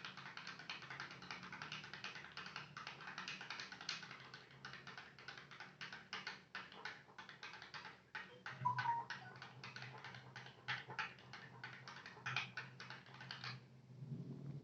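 A spoon stirring a liquid mixture briskly, clinking rapidly and continuously against the sides of its container, then stopping near the end.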